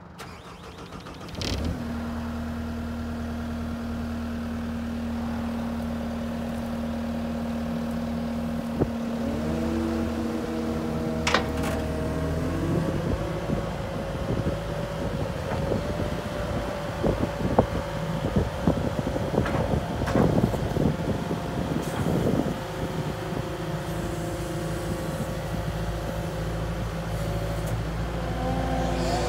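Caterpillar 289D compact track loader's diesel engine comes up suddenly about a second and a half in and runs steadily. About twelve seconds in it revs higher as the loader drives off, with clanks and squeaks from the moving machine over the following ten seconds.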